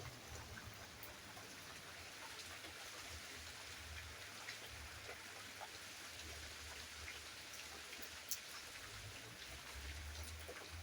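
Steady rain falling, a soft even hiss with scattered drop ticks and one sharper drip about three quarters of the way through.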